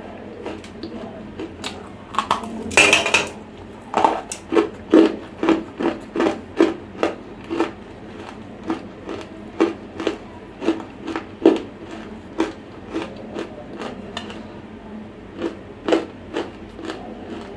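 Close-miked dry crunching as a lump of semi-roasted clay is bitten and chewed. A loud crackling bite comes about two to three seconds in, followed by a quick run of crisp crunches about two a second, with a few more chews near the end.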